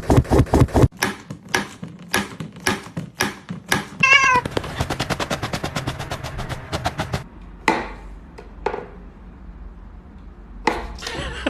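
Domestic cat meowing, with a short wavering call about four seconds in, among many sharp clicks, including a fast run of them just after the call.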